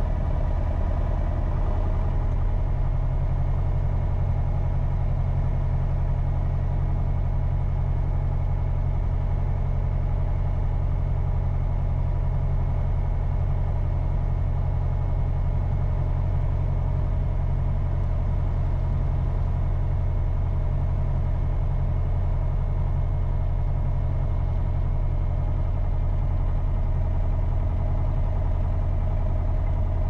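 Single-engine light aircraft's piston engine idling steadily, heard from inside the cockpit.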